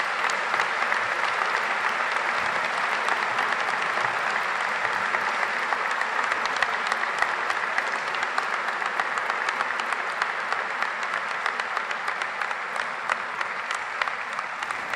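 Audience applauding: steady, dense clapping that starts to die away near the end.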